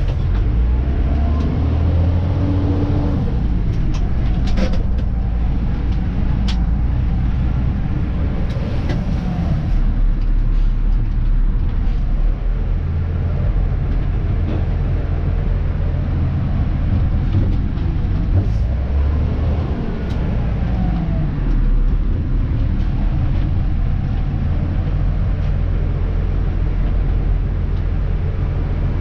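Dennis Elite 2 garbage truck's diesel engine running while driving, heard from the cab, its note rising and falling a few times as the truck changes speed. A few sharp clicks or rattles come a few seconds in.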